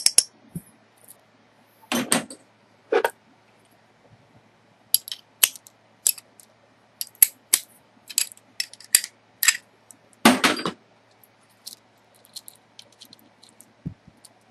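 Metal hand tools and small metal parts clinking and clattering as they are handled and set down, with an irregular run of sharp clinks and one louder clatter about ten seconds in.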